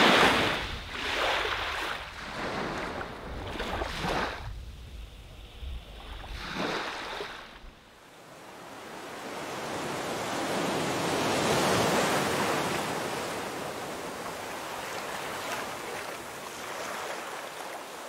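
Sea waves washing in: several short surges in the first half over a low rumble, then, after an abrupt change about eight seconds in, one long slow swell that builds and fades away.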